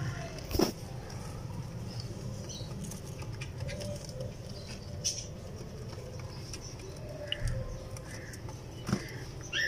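Domestic pigeons cooing faintly over a steady low background rumble, with a sharp knock about half a second in and another near the end.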